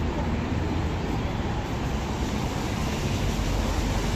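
Steady low rumble of urban vehicle noise, with no single event standing out; the deep rumble grows a little stronger near the end.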